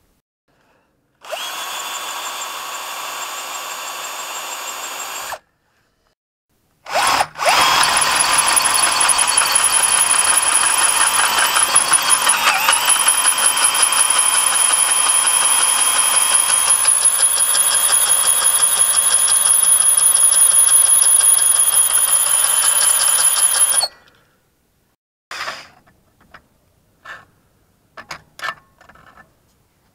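Power drill with a twist bit drilling out a brake-disc retaining screw whose hex head is rounded off. It runs for about four seconds, stops, then runs again for about sixteen seconds, its whine dipping briefly as the bit bites about twelve seconds in. A few light clicks follow near the end.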